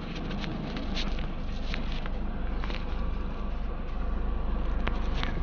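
Steady low hum inside a van's cabin, growing a little stronger near the end, with a few light clicks and taps from handling.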